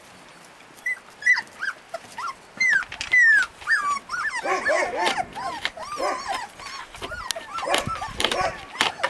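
Several young husky puppies whimpering and yelping. About a second in, single high cries start, each falling in pitch. From about four seconds in, many puppies cry at once, lower and louder, in a jumble of overlapping whines.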